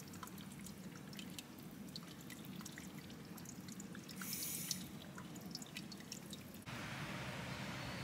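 Spring water dripping and trickling over wet, mossy rocks: scattered small drips, faint. Near the end it cuts abruptly to a steady hiss.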